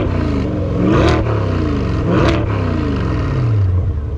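C8 Corvette V8 with an aftermarket exhaust revved in quick blips, about one a second, then dropping back to a steady idle near the end. The revs are loud, about 113 to 115 dB on a sound meter.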